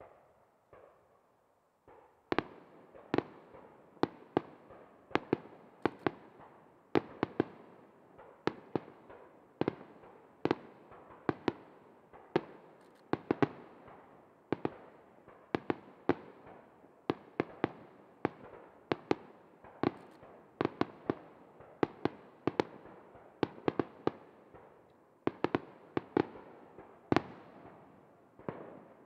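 Starmine fireworks barrage: aerial shells bursting one after another as a steady string of sharp bangs, about one to two a second, each with an echoing tail. The bangs begin about two seconds in.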